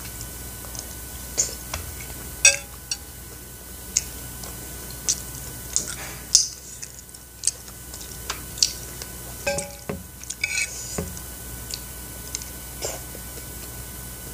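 Close-up eating sounds of chewy tteokbokki rice cakes: irregular wet mouth clicks and smacks, with a few clinks of a metal spoon against a ceramic plate, the clearest about two and a half seconds in and around nine to ten seconds in.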